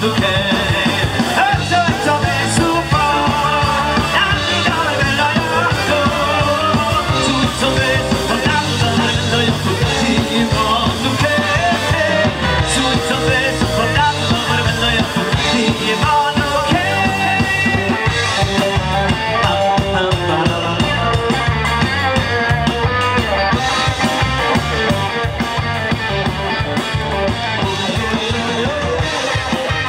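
Live band playing: a male singer on a microphone over a horn section with trumpet and saxophone, drum kit and keyboard.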